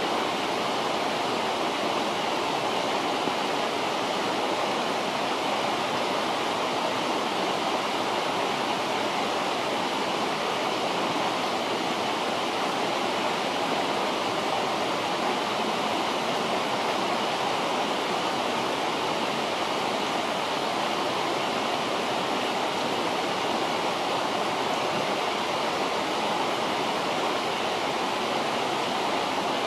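River water rushing steadily, an even wash of water noise.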